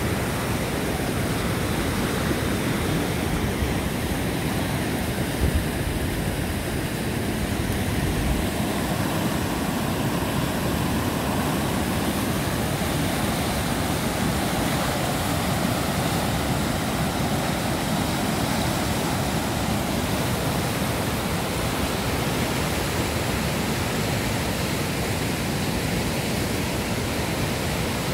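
A river in spate after heavy storms, muddy floodwater rushing over rocks and a low weir as it starts to fall. A steady, even rush of churning whitewater.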